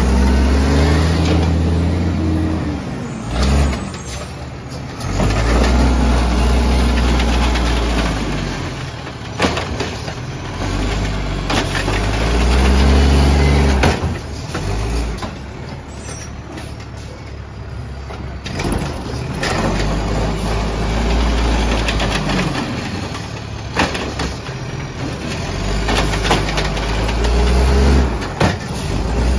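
Autocar Xpeditor garbage truck's engine revving up and settling back about five times as the automated side-loading arm lifts and tips trash carts, with sharp bangs from carts and lids hitting the hopper.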